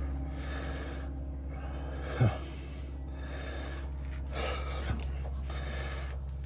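A man breathing hard, in and out every second or so, while straining to push a tire plug into the tread with the insertion tool. A short falling sound about two seconds in is the loudest moment, with a fainter one near five seconds, over a steady low hum.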